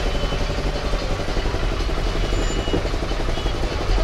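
Steady low rumble of vehicle engines from the street, with a fast even pulsing to it.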